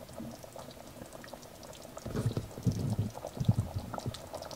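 Celery and chicken stew bubbling as it simmers in a stainless steel pot, a patter of small pops with louder, deeper bubbling from about halfway through.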